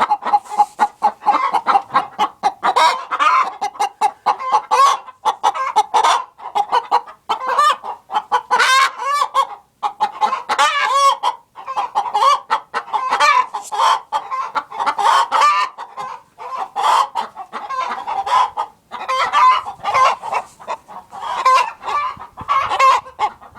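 Several hens clucking and cackling continuously, many short calls overlapping.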